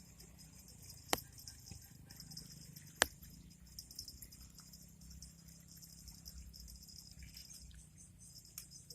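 Steady high-pitched outdoor chirring ambience with a faint low rumble, broken by two sharp clicks, one about a second in and one about three seconds in.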